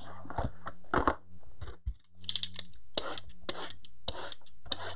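Trading-card hobby boxes being handled and a utility knife cutting open their wrapping: a run of short, scratchy cuts and clicks, about eight in all, over a steady low hum.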